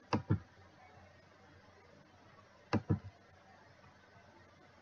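Computer mouse clicks: two quick pairs of clicks, one just after the start and another about two and a half seconds later, over faint room tone.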